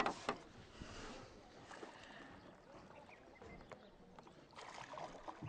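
Faint sounds of a small boat being paddled on water: a few soft knocks and splashes near the start, then a quiet hiss of water.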